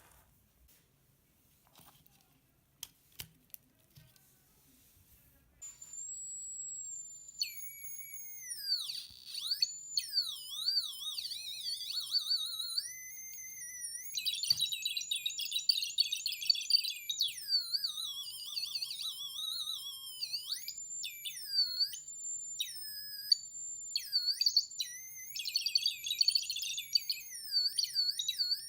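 Arduino-driven electronic sound machine making synthetic beeping tones: after a few faint clicks, a steady high tone starts about six seconds in. It then turns into warbling, gliding pitches that sweep up and down and jump between notes.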